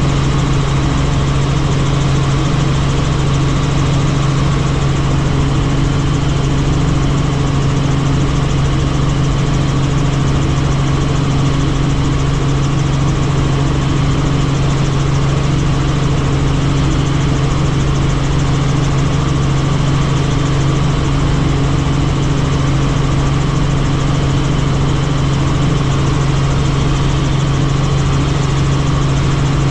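Helicopter engine and rotor running steadily in flight: a constant loud drone with a strong low hum.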